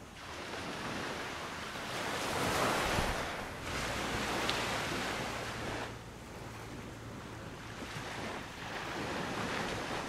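Sea waves washing up on the shore in repeated surges that swell and fall back, the biggest about three seconds in.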